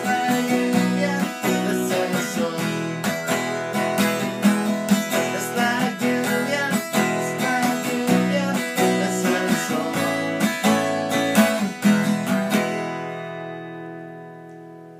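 Acoustic guitar strummed steadily, then a final chord about 13 seconds in, left to ring and fade away.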